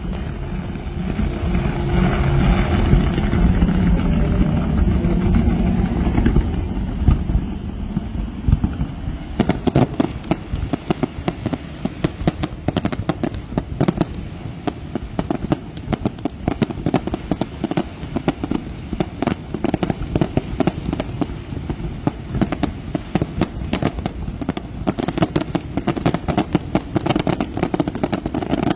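Fireworks display: about nine seconds of low rumbling booms, then a long, dense run of sharp crackling pops and cracks from many small bursts.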